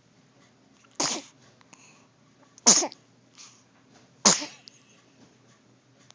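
Three sneezes in a row, about one and a half seconds apart, each a short, sharp, loud burst.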